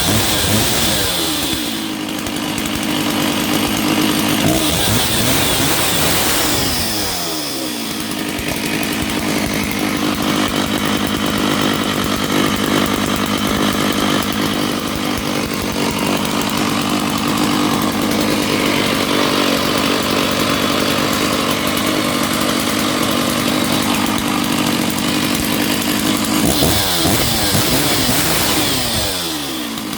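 Stihl MS 660 chainsaw's two-stroke engine running just after a cold start. The revs rise and fall a few times, hold steady for most of the time, then drop away near the end.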